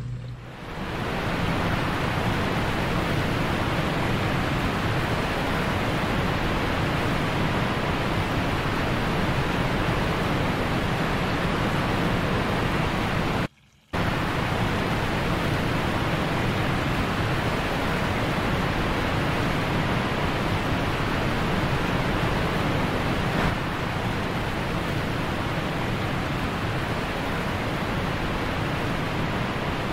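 Steady rushing of running water filling a sand channel, cut off by a brief gap of silence just under halfway through.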